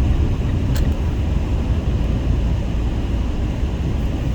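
Steady road noise inside a moving car on a highway: low rumble of tyres and engine, with a brief tick about a second in.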